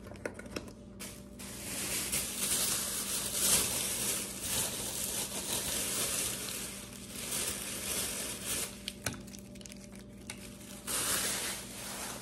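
Crinkling and rustling of takeout food packaging, going in irregular spells for several seconds, easing off about nine seconds in, then one more short burst near the end.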